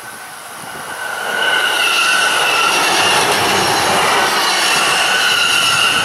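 JR East E531 series electric train on the Joban Line passing close at speed. The sound swells over the first second or two into a loud, steady rush of wheels on rail, with a high steady whine running through it.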